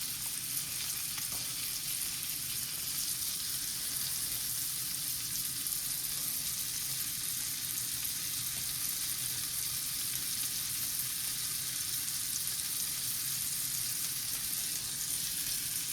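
American Wagyu top sirloin steak sizzling steadily as it pan-sears in butter and garlic.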